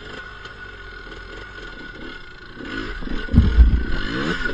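ATV engine running at low revs, then growing louder. About three seconds in there is a loud low rumble, and the engine revs up with rising pitch.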